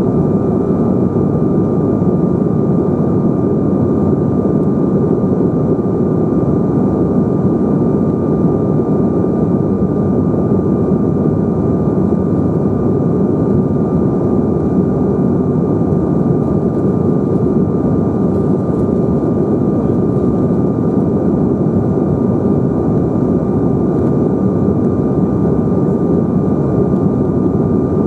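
Steady cabin noise of a Bombardier CRJ900 in flight, heard from a rear window seat close to its tail-mounted GE CF34 turbofans: a constant deep rush of engine and airflow noise with a thin, steady high whine running through it.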